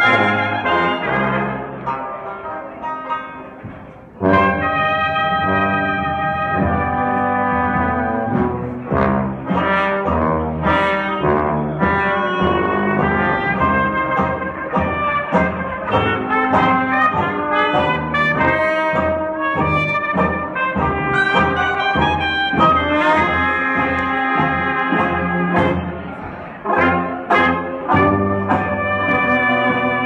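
Live traditional jazz band playing, with trumpet, trombone, clarinet and sousaphone over banjos and upright bass. The first four seconds are quieter, then the full band comes in loud.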